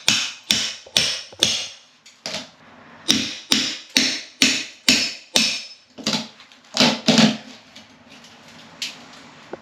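Hammer blows knocking out material during bathroom demolition: sharp strikes at about two a second, with a brief pause, then a few slower, scattered blows and a last one near the end.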